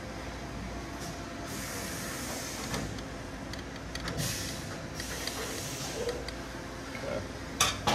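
Steady hum of a shop fan under light handling noise as a radiator hose clamp is worked with a hand tool, with two stretches of brushing noise and a pair of sharp clicks near the end.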